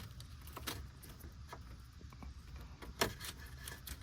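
Light clicks and rustles of a car wiring harness and its plastic connector being handled and fed through, with a sharper click about three seconds in.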